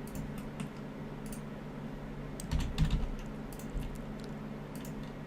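Computer keyboard keys tapped irregularly, with a quick run of clicks about halfway through, over a steady low hum.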